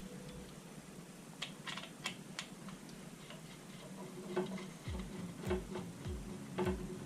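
Small scattered clicks and ticks of screws and a screwdriver being handled during graphics-card reassembly. About five seconds in, background music with a steady beat comes in.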